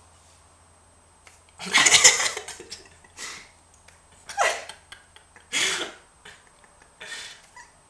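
A person's stifled, breathy laughter in five short bursts, the loudest about two seconds in.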